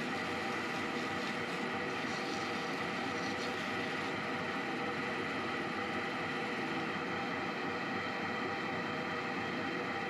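Small lathe running steadily with an even motor hum, while a ring spinning on its mandrel is sanded by hand.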